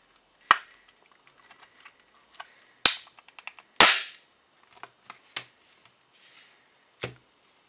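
Sharp cracks and snaps of a laptop battery pack's welded plastic case as its two halves are pulled apart by hand: three loud snaps, the last with a short crackle, with small plastic clicks between. A duller knock near the end.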